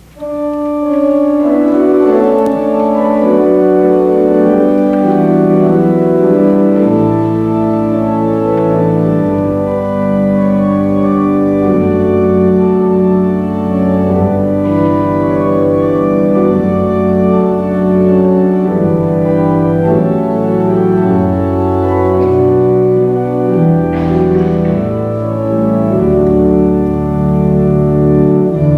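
Church organ playing held chords that start suddenly, with deep bass notes coming in about seven seconds in: the introduction to a hymn, which the congregation and choir then sing.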